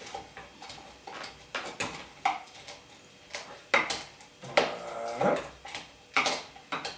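A muddler pounding and grinding pineapple chunks and cracked coffee beans in the bottom of a cocktail shaker, pressing the juice out of the fruit. It makes irregular knocks and squishy crunches, with a squeak about five seconds in that falls in pitch.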